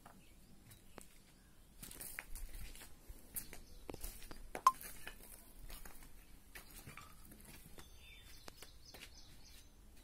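Footsteps scuffing on a dirt floor with phone-handling noise: a run of scattered clicks and scuffs, with one sharp clink about halfway through. Faint bird chirps near the end.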